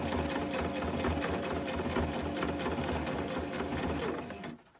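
Domestic electric sewing machine stitching a blind hem stitch through folded fabric with a blind hem foot: a steady motor hum with a regular ticking of the needle, slowing and stopping shortly before the end.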